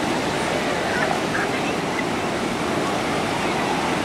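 Ocean surf washing in and breaking: a steady rush of water.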